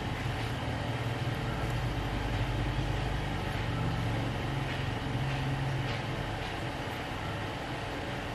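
Low, steady rumble of a motor vehicle's engine over a constant hiss, swelling a couple of seconds in and easing off again after about six seconds.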